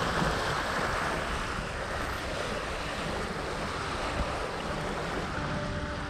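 Steady rush of wind on the microphone and waves washing against the hull of a sailing yacht under way.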